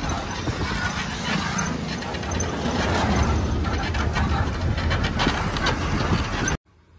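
Road noise from a moving truck heard through an open window: a steady rush of wind over a low engine and tyre rumble, cutting off suddenly near the end.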